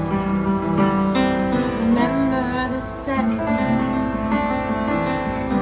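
Live piano accompaniment playing steady held chords and notes between the singer's phrases of a cabaret song.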